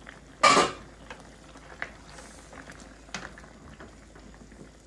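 A loud metal clank of stainless steel cookware about half a second in, then a few lighter clinks as a ladle stirs stew chicken in a stainless skillet.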